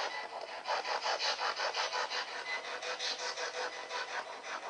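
Spirit box sweeping through radio frequencies: a fast, choppy stream of white-noise static, pulsing several times a second.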